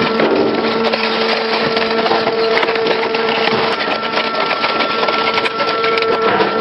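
Large industrial shredding machine running under load: a steady machine whine under dense crackling as material is torn and ground.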